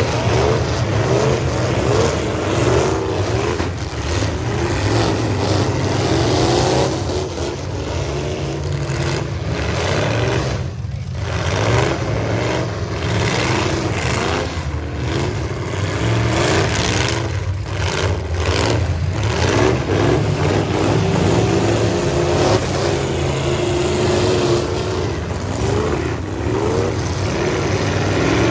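Engines of several full-size demolition-derby pickup trucks running hard at once, their overlapping revs rising and falling as the trucks spin and push through mud.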